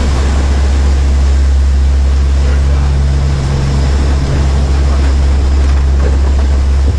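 Cabin noise of a four-engine turboprop hurricane hunter aircraft in flight: a loud, steady, deep propeller hum under a constant rushing noise.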